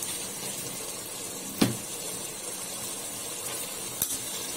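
Steady hiss of a pot of prawn masala simmering. A steel spoon knocks sharply against the pot about one and a half seconds in, and clinks more lightly again near the end.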